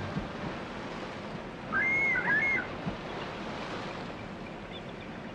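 Bald eagle giving a high, whistled chattering call of several rising and falling notes, about a second long, starting about two seconds in, over a steady rush of river water.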